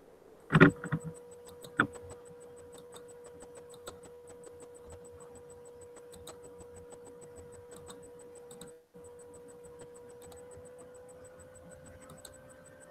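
A loud clunk and a couple of sharp clicks about half a second in, then a faint steady whine, cut off for a moment around nine seconds, that rises slightly in pitch near the end, over soft rapid ticking.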